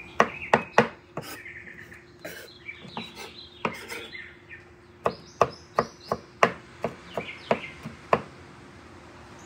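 Kitchen knife mincing garlic on a bamboo cutting board: the blade knocks against the wood in quick, irregular taps. Birds chirp in the background.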